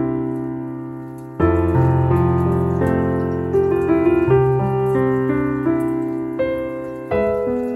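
Background piano music: slow chords that ring and fade, a new chord struck every second or two.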